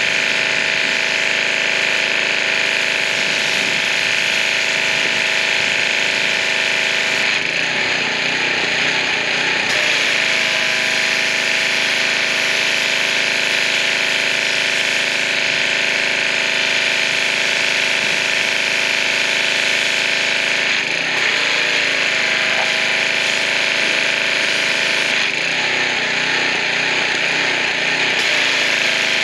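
Pressure washer running steadily: the motor and pump drone under the loud hiss of the high-pressure water jet. The sound turns rougher for a few seconds three times, about a quarter, two-thirds and near the end of the way through.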